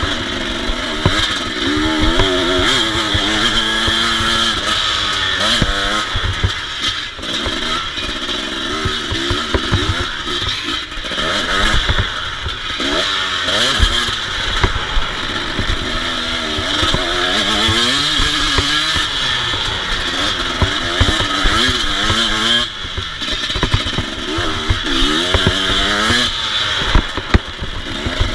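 KTM EXC 250 two-stroke motocross engine being ridden hard, revving up and dropping back again and again. There is a steady rushing noise and short clattering knocks from the bike over the rough track.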